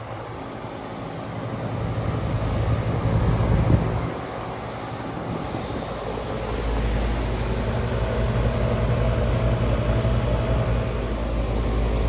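Outdoor heat pump unit running: a steady compressor hum with the whir of the condenser fan. A deeper low rumble joins about halfway through.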